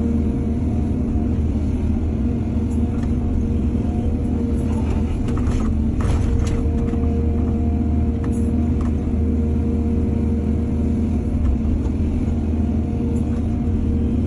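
A heavy diesel engine running steadily, likely an excavator working, with a few short clanks and rattles about five to seven seconds in.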